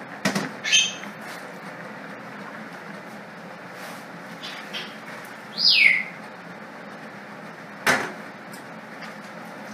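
Handling sounds at a kitchen sink as spaghetti is drained: a couple of clicks at the start, a short falling squeak about halfway, and a single sharp knock near the end, over a steady rushing background.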